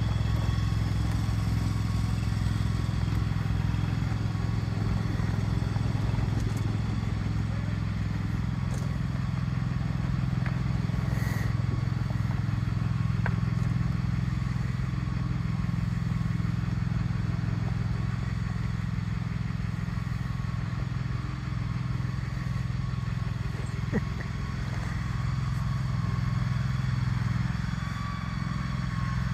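Engine of the machine moving the shed, running steadily at low, even speed, with a sharp knock once near the end.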